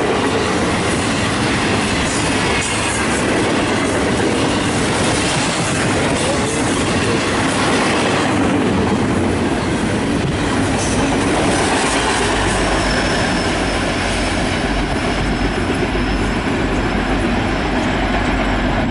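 Union Pacific double-stack container freight train passing at speed: a steady loud rumble and clatter of steel wheels on the rails, with some wheel squeal. A low steady drone joins about two-thirds of the way through.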